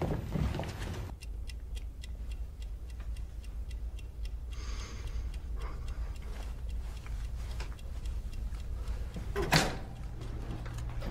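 Wall clock ticking steadily in a quiet room over a low hum, with one louder knock near the end.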